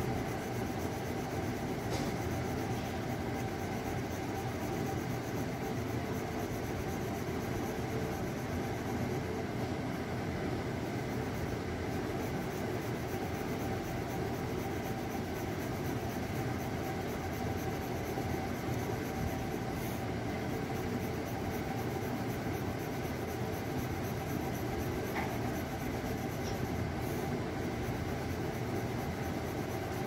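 Graphite pencil scratching on paper in quick, light shading strokes. A steady low background rumble runs underneath and is the loudest part of the sound.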